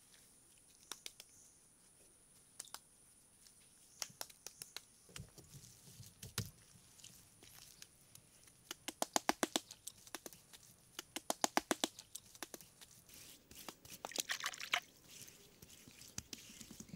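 Light sharp clicks and taps: scattered singles, then quick runs of about eight to ten a second in the middle, the loudest, and a short rustling scrape near the end.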